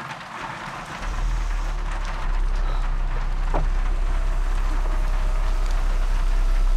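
Low, steady rumble of a car heard from inside the cabin, coming in about a second in and growing louder about two seconds in.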